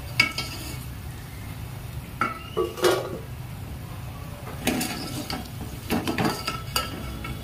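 Slotted metal spatula scraping and clinking against the inside of a metal pot as deep-fried soya chaap pieces are scooped out of the oil, in several separate bursts over a low steady hum.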